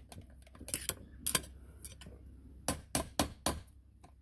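Claw hammer striking the butt of a screwdriver whose tip is set against the old wear ring of a Sea-Doo jet pump, driving the ring out of the pump housing: sharp metallic taps, a couple about a second in, then a quick run of four near the end.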